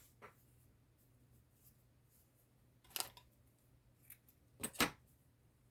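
Scissors snipping a handful of times in short, sharp, separate cuts, the loudest two close together near the end.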